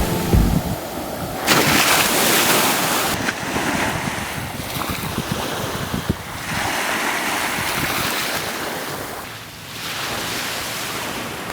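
Sea waves washing onto a sandy beach, the surf swelling and easing every few seconds, with wind on the microphone.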